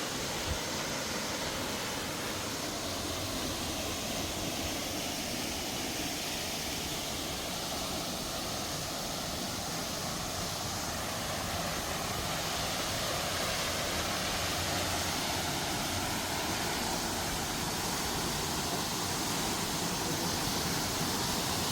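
Steady rushing of a waterfall, growing a little louder in the second half.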